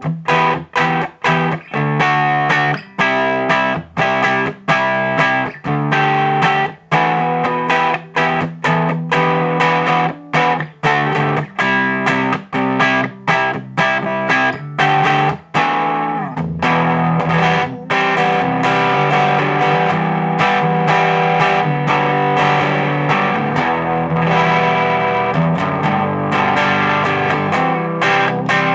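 Electric guitar played through a DIY Distortion+ style drive pedal with three germanium clipping diodes, giving a distorted tone. For the first half it plays short strummed chords that are cut off sharply. From about halfway it moves to longer held chords that ring on.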